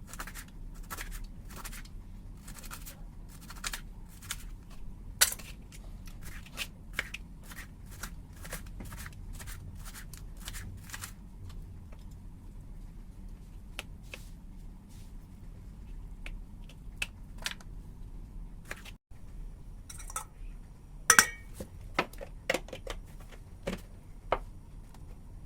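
Knife slicing bitter gourd on a cutting board: a fast run of crisp cuts, thinning out, then a few louder knocks near the end.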